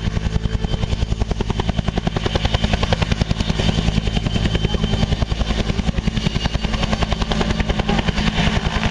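Agusta-Bell AB212 helicopter hovering close by: its two-bladed main rotor beats in a fast, even chop over the steady tone of its twin turbine engines.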